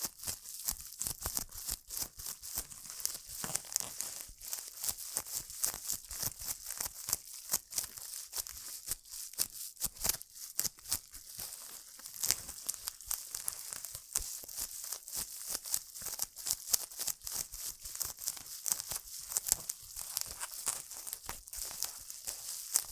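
Bubble wrap being crinkled and crushed close to the microphone: continuous rustling and crackling with many quick, sharp clicks.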